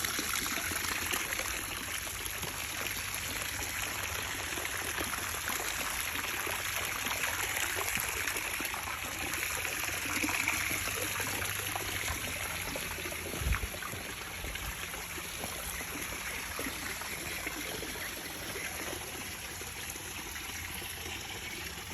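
Water trickling and splashing steadily into fish-farm tanks, with one dull thump about two-thirds of the way through.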